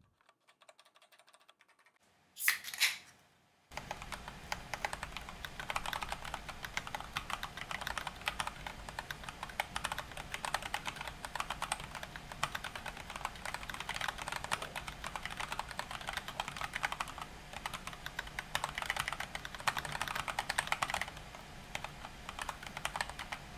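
Fast, continuous typing on an ErgoDox EZ split mechanical keyboard: a dense clatter of key switches that starts about four seconds in, after a near-quiet start and one brief sharp sound.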